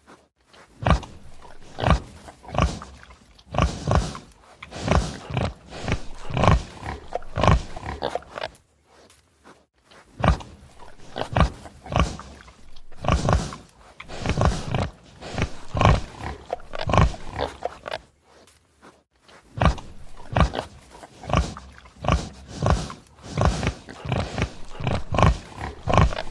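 Pig grunting repeatedly: short, rough grunts in quick clusters, with brief pauses about 8 and 18 seconds in.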